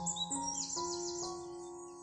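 Wild birds singing quick, high, falling phrases over soft instrumental music of slow, sustained notes that change a few times in the first second or so. The birdsong thins out near the end as the music fades a little.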